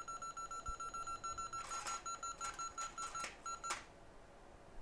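Rapid electronic beeping, about six short high beeps a second, that stops about four seconds in, with a few brief clicks among the later beeps.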